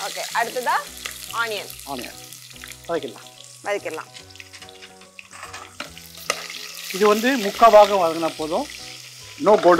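Whole spices — bay leaves, cinnamon, cardamom and cloves — sizzling in hot oil in a pressure cooker, with a ladle stirring them. Background music plays over it.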